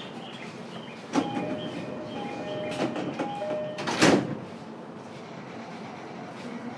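JR East E233-7000 series commuter train's sliding doors closing at a station stop, heard from inside the car. A high-then-low two-note door chime sounds three times while the doors move, and the doors shut with a loud thud about four seconds in.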